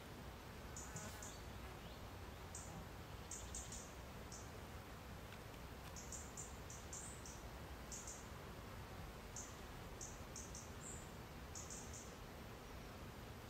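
Faint, short, high-pitched chirps from a small animal, coming in little clusters of two to four every second or two, over a low steady hiss.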